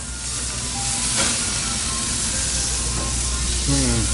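Marinated lamb leg sizzling as it sears on a hot barbecue grill, a steady hiss that swells over the first second. A brief falling squeak near the end.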